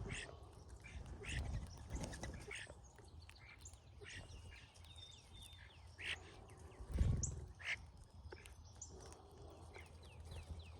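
A flock of brown-headed cowbirds calling: a stream of short squeaky calls and thin falling whistles. A low thump about seven seconds in is the loudest sound.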